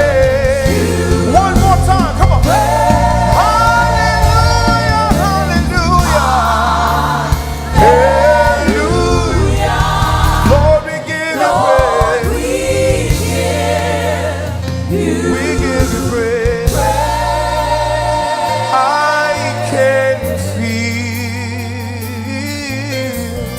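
Live gospel worship singing by a choir with instrumental backing, the voices holding long notes in harmony over a steady low bass line.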